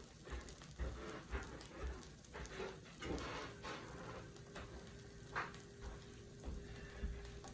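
Parmesan cheese sizzling in a hot pan, with a quiet, irregular crackle and pop as it fries.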